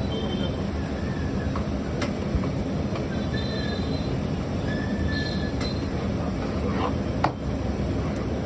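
Steady low rumble of a busy commercial kitchen at a large iron griddle, with a few sharp clinks of metal utensils, the loudest near the end.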